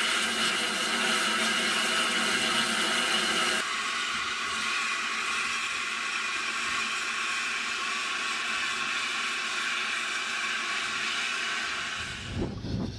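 Steam hissing steadily from BR Standard 8P steam locomotive 71000 Duke of Gloucester as it stands in steam. The hiss drops a little about three and a half seconds in and fades near the end, as a low rumble comes in.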